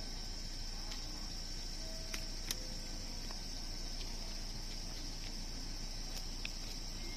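Steady station-platform ambience: a continuous high-pitched whine over a low hum, with a few faint clicks.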